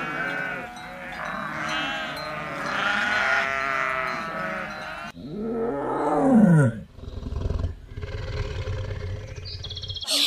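A herd of goats bleating, many overlapping calls at once. About five seconds in, it cuts to a tiger roaring once, a long call that falls in pitch, followed by a low rumble.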